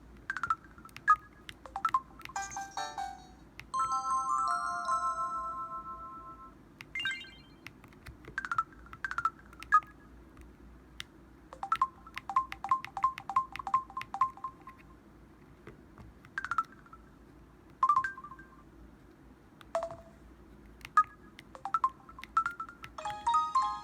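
Samsung Anycall SPH-W5200 mobile phone playing its built-in sound effects one after another: short electronic beeps, chirps and chimes, among them a held chord of a few notes and a quick run of about ten even beeps.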